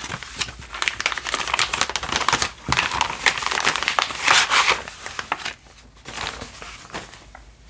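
Clear plastic packaging bag and the paper cross stitch kit inside it crinkling and rustling as they are handled and the kit is slid out. The crinkling is loudest in the middle and eases off after about five and a half seconds.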